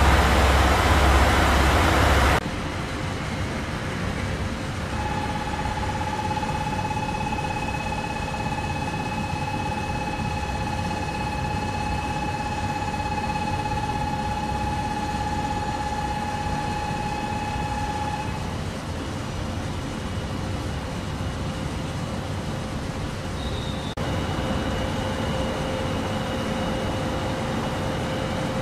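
Diesel railcars running at a station. It opens with a loud, low engine rumble close by that cuts off after about two seconds. A steadier rumble follows, with a long steady high whine for about thirteen seconds, and near the end idling railcars with faint steady tones.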